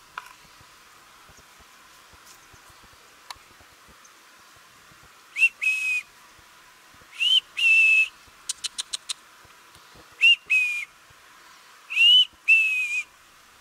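A man whistling to call a peacock: four two-note whistles, each a quick rising note followed by a level one, with a quick run of five clicks between the second and third.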